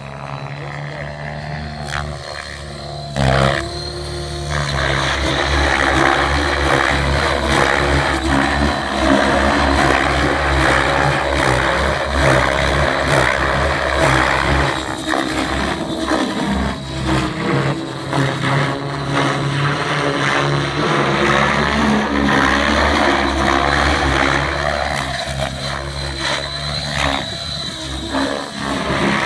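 Align T-Rex 700E electric RC helicopter in flight: rotor blades beating with a steady high whine from the electric motor and drive gears. It gets louder about four seconds in and swells and fades, rising and falling in pitch as the helicopter swoops through manoeuvres and passes.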